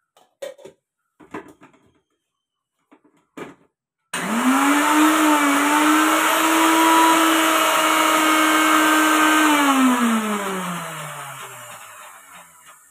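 A few light knocks as the steel jar is handled and set on the base. About four seconds in, an electric mixer grinder starts with a quick rising whine and runs steadily for about five seconds, grinding boiled greens to a paste. It is then switched off and winds down with a falling pitch over the next few seconds.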